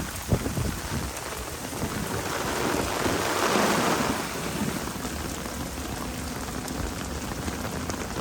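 Heavy typhoon rain falling steadily, with a low rumble underneath, swelling louder for about a second between three and four seconds in.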